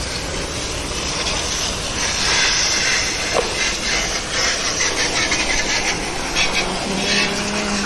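Jet-wash water spray hissing and spattering against a motorcycle's engine and frame as it is rinsed. The spray is steady, growing louder about two seconds in.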